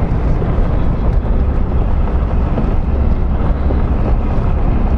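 Chevrolet Silverado ZR2 pickup truck driving, a steady low rumble of engine and tyres on the move.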